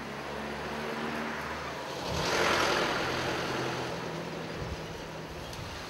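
A motor vehicle's engine hum with a swell of tyre and road noise that peaks about two seconds in and fades as it goes by.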